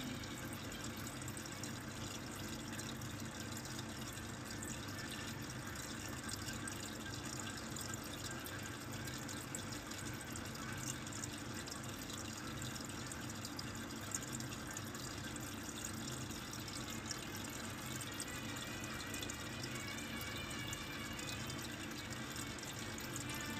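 Steady rushing background noise, like running water, unchanging throughout.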